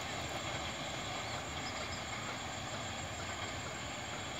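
Distant, steady rumble of a passenger train running away down the line.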